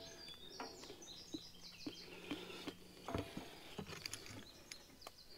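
Faint birdsong: a run of quick, high chirps through the first half, over quiet outdoor background with a few soft clicks.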